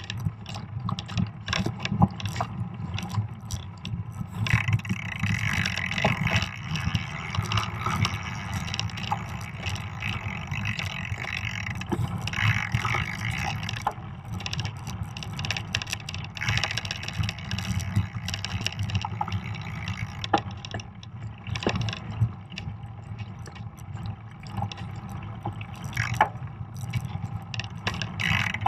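Fat bike riding over a snow-covered trail, heard from a camera mounted on the bike. The tyres roll and crunch in the snow under a steady low rumble, and the bike rattles and clicks throughout.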